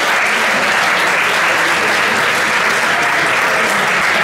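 Audience applauding steadily, a dense, even clapping that holds at the same level throughout.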